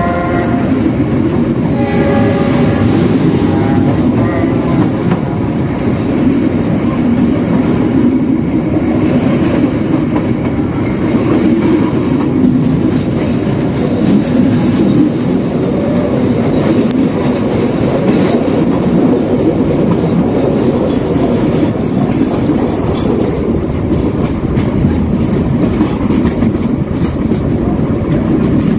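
Passenger train running at speed, heard from a coach doorway: a steady, loud rumble of wheels on the rails. The locomotive's horn sounds as it begins and again briefly about two seconds in.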